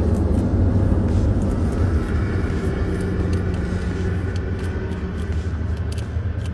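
Road traffic, a steady low rumble of passing vehicles that slowly eases off.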